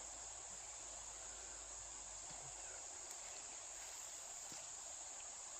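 Steady, high-pitched chorus of insects trilling without a break, over the even hiss of a flowing stream.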